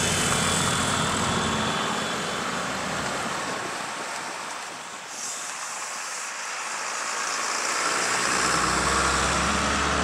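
Road traffic driving past close by: motor scooter engines first, then a coach bus and a car going round the bend one after another, with engine rumble building near the end.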